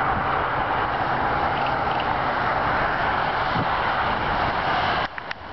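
Steam locomotive hauling a passenger train, heard as a steady rushing noise that dips suddenly near the end.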